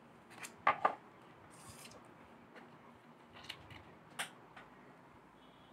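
Small metal valve parts of a colour sorter ejector valve clicking and tapping as they are handled and set down on a wooden table: a loud double click under a second in, then a few lighter taps later.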